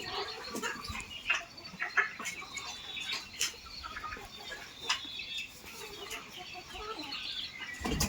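Flock of desi chickens clucking, with many short, scattered calls overlapping one another.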